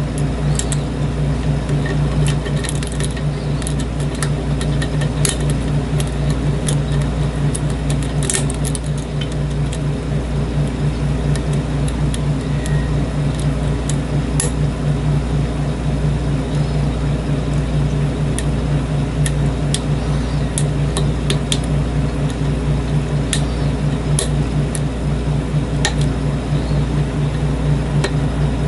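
Light metallic clicks and ticks of lock picks working the pins of a pin-tumbler lock cylinder, scattered irregularly, over a steady low mechanical hum.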